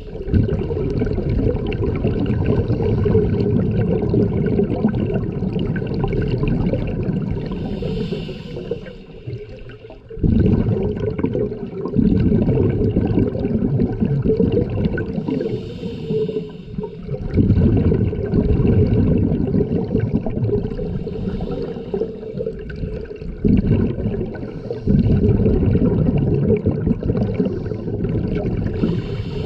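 Open-circuit scuba regulator underwater: long runs of exhaled bubbles, broken by a short hiss of inhalation about every eight seconds.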